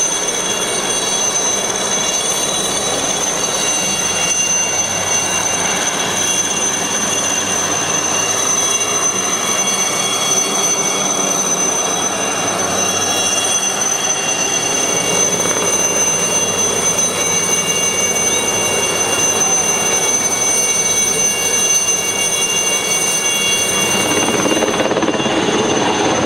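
Helicopter in flight with a load on a long line: a steady turbine whine made of several fixed high tones over continuous rotor and engine noise. The sound shifts near the end, with more low hum.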